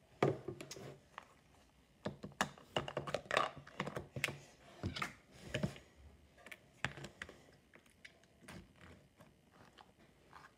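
Irregular clicks and knocks of a wire whisk and containers being handled while slime is mixed, with a dull thud right at the start; the clicking thins out over the last few seconds.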